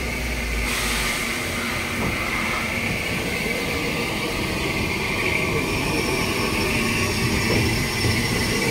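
Southern Railway Schools class steam locomotive 'Repton' standing at the platform, steam hissing steadily; the hiss gets louder and brighter less than a second in.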